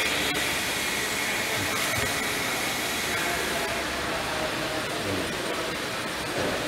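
Steady background noise of a large auto body workshop, an even rushing hiss, with faint voices in the distance.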